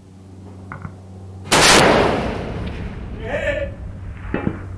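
A single shot from a Christensen Arms MPR .338 Lapua Magnum rifle with a muzzle brake, fired about a second and a half in. It is very loud, and its blast rings on and fades over about a second.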